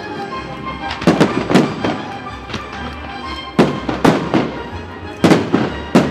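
Fireworks bursting overhead in sharp bangs, mostly in pairs about half a second apart, three pairs in all, with smaller pops between them. Music plays throughout as the display's soundtrack.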